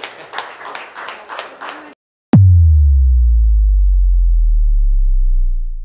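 A small group clapping, cut off abruptly about two seconds in. After a brief gap, a sharp downward-sweeping hit opens into a loud, deep boom that slowly sinks in pitch and fades out: a cinematic impact sound effect for a title card.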